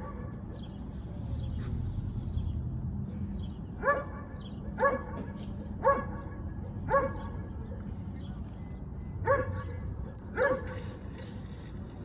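A dog giving short, sharp yipping barks: four about a second apart starting about four seconds in, then two more after a short pause.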